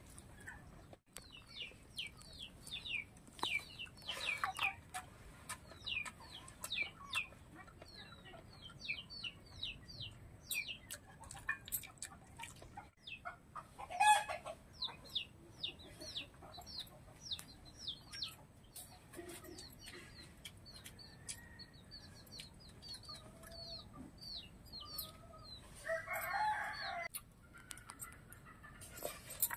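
Chickens calling in the yard: a steady run of short, high, downward peeps several times a second, with a louder call about fourteen seconds in and a longer one near the end.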